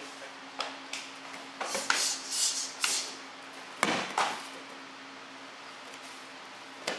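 Irregular sharp snaps and knocks with bursts of cloth rustle, the biggest about four seconds in: a karate uniform snapping and feet striking the floor as techniques are performed. A steady low hum runs underneath.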